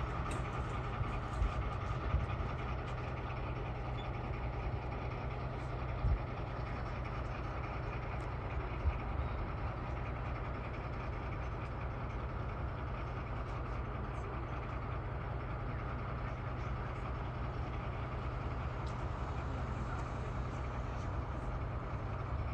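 A six-axle diesel-hydraulic locomotive, rebuilt from a standard-gauge four-axle, idling steadily with a low engine hum and a couple of faint knocks.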